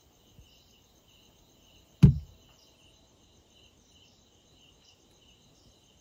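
Steady high-pitched chirring of crickets in the night forest. About two seconds in there is a single sharp knock, the loudest sound here.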